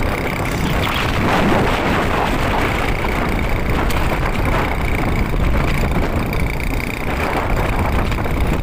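Vehicle driving fast over a sandy track: steady engine and rolling noise with wind rushing over the microphone.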